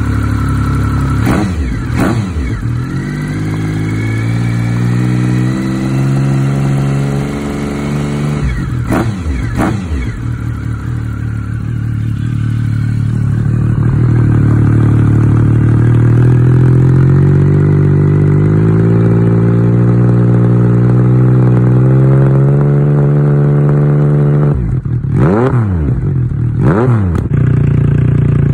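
Triumph Sprint ST 1050's inline three-cylinder engine running through an aftermarket Delkevic single round carbon silencer. It idles with quick throttle blips, one about a second and a half in and one around nine seconds in, is held at slightly higher revs through the middle, and gets two more sharp blips near the end.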